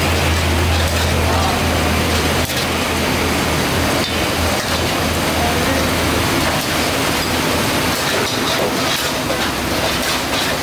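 Gas burners running and mutton sizzling in a row of karahi woks: a steady hiss, with a low hum that dies away about four seconds in.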